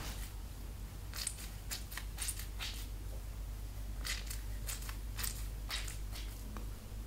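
Long wet hair being handled close to the microphone: a run of short, crisp crunching sounds, with a brief lull about halfway through.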